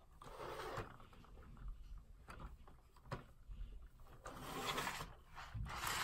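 A plastic LEGO model being slid and turned on a wooden desk: rubbing and scraping of the bricks' base against the wood in several swells, with a few light clicks and knocks of plastic.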